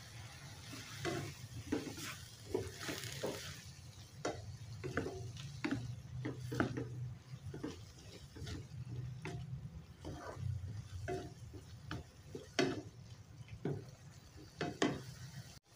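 Black plastic slotted spatula scraping and knocking against a non-stick wok as pak choy and shrimp are stir-fried, in irregular strokes about two a second, with the food sizzling. A steady low hum runs underneath.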